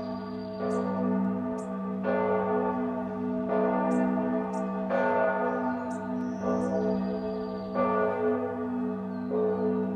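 Background music: bell-like tones struck about every second and a half over a steady low drone, with short high chirps now and then.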